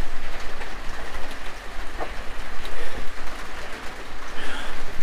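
Rain falling steadily on the chicken coop roof, an even hiss sprinkled with many small ticks.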